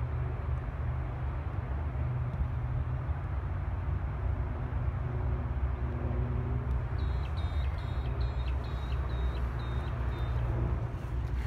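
Wind buffeting a phone microphone while running across grass: a heavy, uneven low rumble with hiss. About seven seconds in, a run of about ten short high chirps, roughly three a second, lasting some three seconds.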